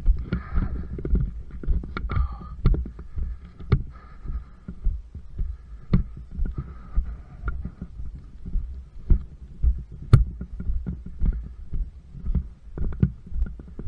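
Footsteps of a person walking on a wooden slatted boardwalk, about two dull knocks a second, over a steady low rumble.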